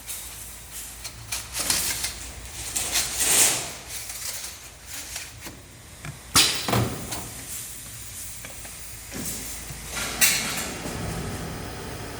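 Intermittent hissing and clanking from workshop machinery, with two sharp knocks about six and ten seconds in.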